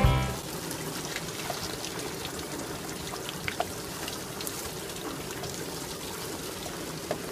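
Water trickling steadily, with scattered small drips. Guitar music cuts off just after the start.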